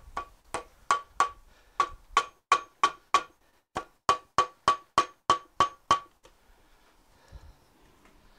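A run of about eighteen hammer blows on a David Brown 990 Selectamatic tractor gearbox during its teardown, each blow a sharp metallic knock with a brief ring. They come at about three a second, with a short pause midway, and stop about six seconds in.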